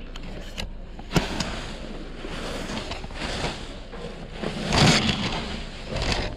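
Clear plastic trash bags rustling and crinkling as they are handled, with a sharp knock about a second in and a louder rustle just before five seconds.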